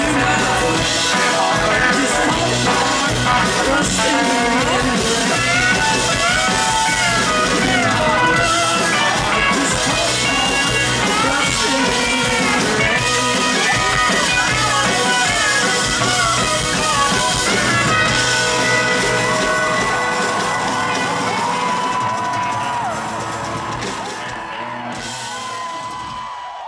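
A live country band with electric guitar and drum kit plays the instrumental close of a song, with sliding pitched lines over the top. The music fades down over the last few seconds.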